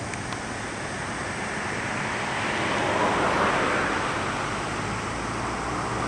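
A vehicle passing close by: a rushing noise that swells to a peak about halfway through and then fades.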